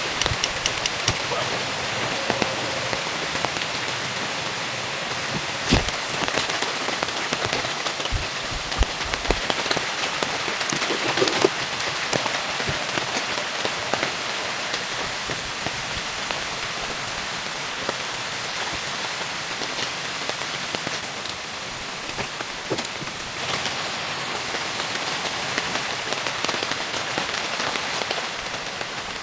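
Steady light rain, with many separate drops landing close by as sharp ticks and a few louder knocks.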